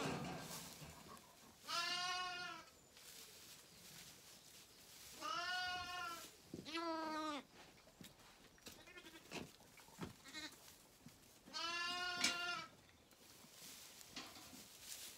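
Zwartbles lambs bleating: four loud, wavering bleats of about a second each, with a couple of fainter ones in between. They are hungry lambs calling at bottle-feeding time.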